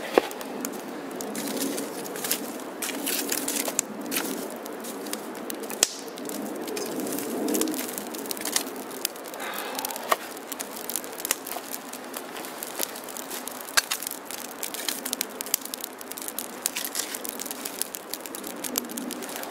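Wood campfire in a stone fire ring crackling, with frequent sharp pops and snaps over a steady hiss.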